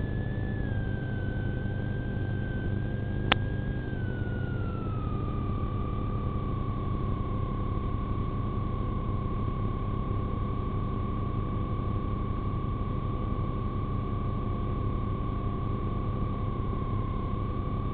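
Steady low rumble in a police car, with a steady whine that drops in pitch about four seconds in and then holds level, and one sharp click a little over three seconds in.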